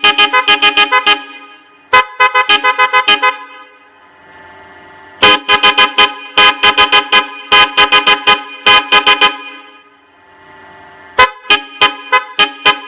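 Alço car horn sounding in repeated stuttering blasts, each about a second long and made of rapid pulses, about eight a second, of a multi-tone chord, with short pauses between blasts, about eight blasts in all.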